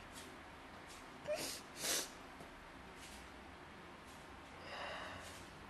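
A woman crying quietly: a couple of quick sniffs about a second and a half in, then a longer, shaky breath near the end.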